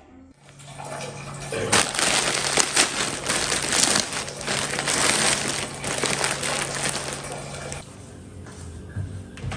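Plastic shopping bag and plastic noodle packaging crinkling and rustling as groceries are handled and unpacked. The crackling is dense and loud for about seven seconds, then dies down.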